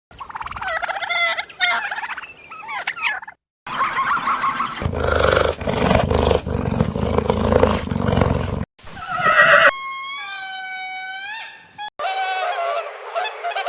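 A rapid string of different animal calls edited together, each cut off abruptly: pitched cries and gobbles, a long low roaring stretch, and a call that dips and rises in pitch.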